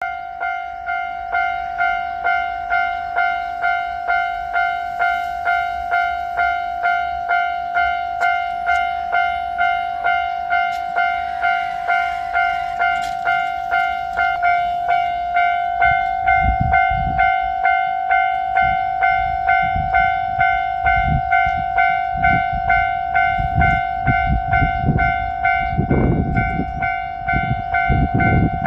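Japanese level-crossing warning bell ringing its steady electronic 'kan-kan', about one and a half strikes a second. From about halfway through, a low rumble and thumping join in waves as the 2700 series limited express diesel train passes over the crossing.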